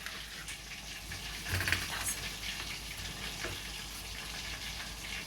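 Steady sizzling hiss of chicken frying in hot oil, with a short clatter about a second and a half in.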